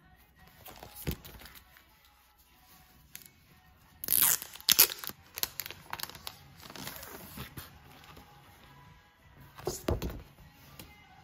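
A silver foil merchandise bag being torn open, loudest about four seconds in, then crinkling as it is handled. Near the end there is another loud rustle with a light thump as the plastic clear file inside is pulled out. Soft background music plays underneath.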